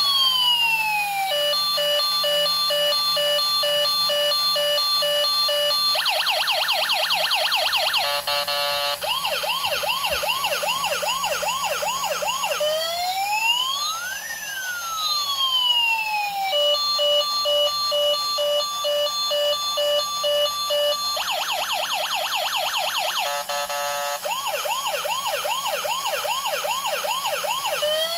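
Electronic emergency-vehicle siren cycling through its tones: a slow rising and falling wail, then a steady beeping tone, then a fast yelp with a brief very rapid warble in the middle. The sequence repeats about every fifteen seconds, with no engine or traffic heard beneath it.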